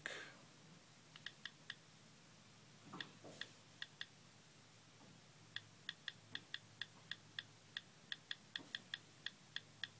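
Faint key-press clicks from a smartphone's on-screen keyboard as text is typed: a few scattered clicks, then a quick run of about four a second through the second half.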